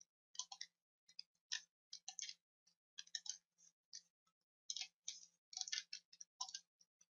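Quiet, irregular clicking of a computer mouse and keyboard, about a dozen short clicks scattered through, some in quick clusters.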